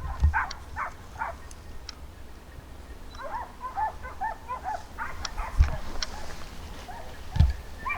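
Hunting dogs barking and yelping in strings of short, quick barks while they chase wild boar, thickest from about three seconds in. A few dull low thumps come in between.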